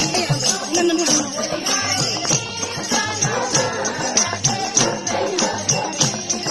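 Nepali devotional bhajan music: a harmonium and group singing over a drum beating a steady rhythm, with jingling percussion striking on the beats.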